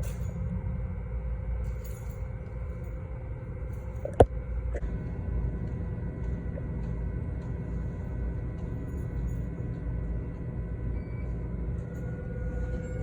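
Steady low rumbling noise with a faint steady hum, broken by one sharp, very short click about four seconds in and a softer click just after.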